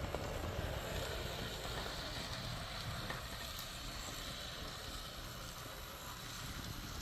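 AZL Z scale E7A model locomotive running around a track oval: a faint, steady whir of its small motor and wheels on the rails under an even hiss.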